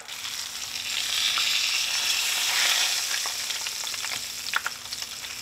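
Cornmeal-breaded whole mangrove snapper frying in shallow hot oil in a cast-iron skillet: a steady sizzle that grows louder in the middle, as metal tongs grip and lift the fish. A few light clicks come near the end.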